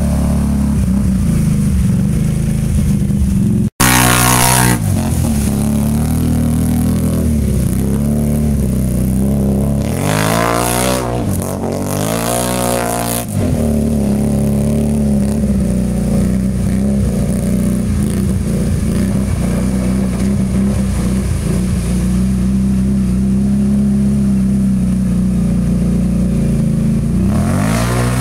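Can-Am Renegade 500 ATV's single-cylinder engine running hard through a creek, its pitch rising and falling several times as the throttle is worked, with water spraying off the tyres. The sound cuts out for a split second just before 4 s where the footage is edited.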